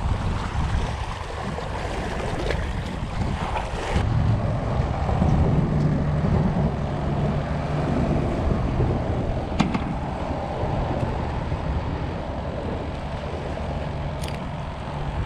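Wind buffeting the microphone over waves lapping against the rocky seawall, with a few small clicks from handling gear about 4, 9 and 14 seconds in.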